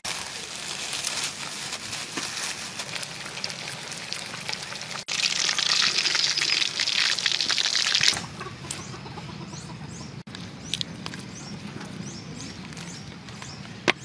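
Plastic sheet crinkling and rustling, then a loud steady hiss for about three seconds that cuts off abruptly. After it comes a quieter stretch with many short, high chirps of small birds.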